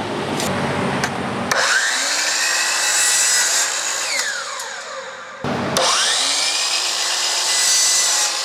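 DeWalt sliding miter saw cutting a composite railing cap to length, twice: each time the motor whines up to speed, runs through the cut, and whines back down when the trigger is released.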